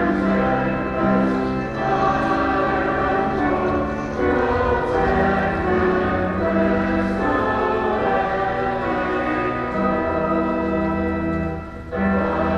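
Music with a choir singing held chords that change every second or two, with a brief break near the end.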